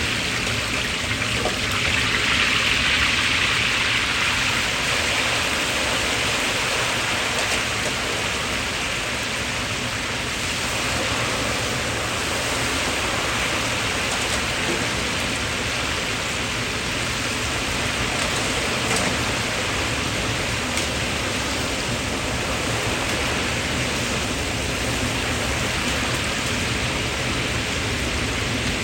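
Steady hissing of food cooking over heat, swelling slightly a few seconds in.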